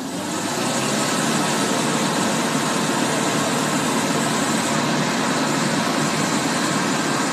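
Engine of a bogged-down Mitsubishi Pajero running hard. It rises over about the first second, then holds steady.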